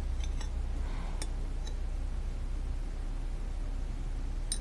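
A few faint clinks of cutlery against a dish in the first two seconds or so, over a low steady room hum.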